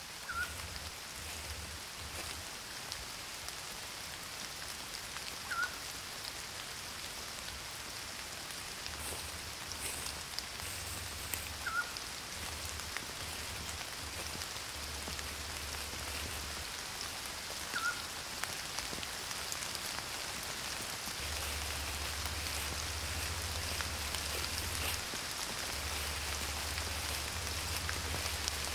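Steady rain, an even hiss throughout, with a short high chirp about every six seconds.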